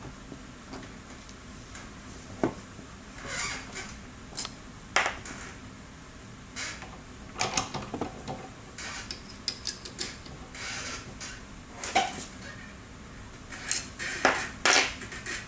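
Irregular metallic clinks, taps and short scrapes as steel parts and a hex key are handled and fitted during hand assembly of a Lindova air tool.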